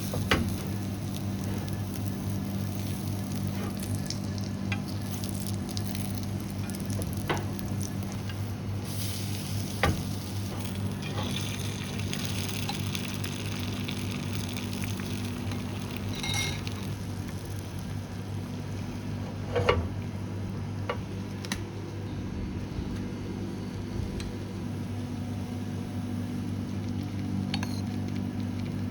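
Egg mixture sizzling in a tamagoyaki pan, with a few sharp taps and knocks of a utensil against the pan over a steady low kitchen hum.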